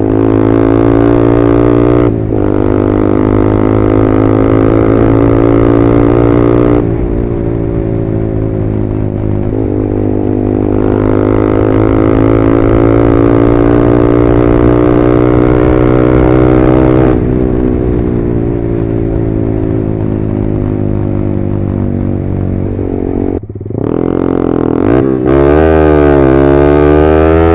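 Yamaha R15M's single-cylinder engine running through an SC Project full-system exhaust while riding. The note holds or climbs slowly, breaks off briefly about 2, 7, 17 and 23 seconds in, then rises and falls repeatedly in quick revs near the end.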